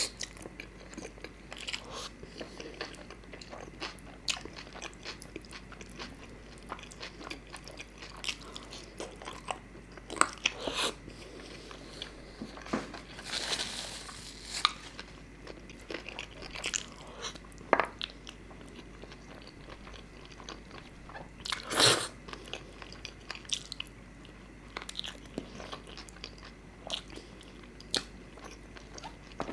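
Close-up eating sounds of a man chewing and biting chicken curry and chicken pieces, in many short wet clicks. About halfway through comes a brief rustle of a tissue wiping his mouth, and a little past two-thirds of the way comes one louder burst, the loudest sound here.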